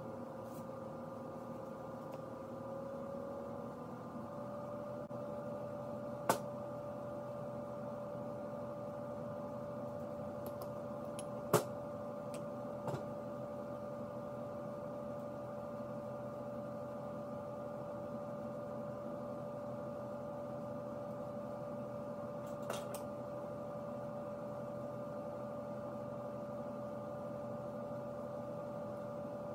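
Steady background hum with a held tone, broken by a few sharp clicks as the cast-iron lathe tailstock and hand tools are handled on the bench, the two loudest about six and eleven seconds in.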